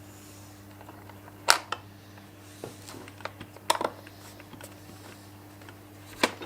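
Sharp clicks and knocks of things being handled during an unboxing, about six in all and irregularly spaced, over a steady low electrical hum.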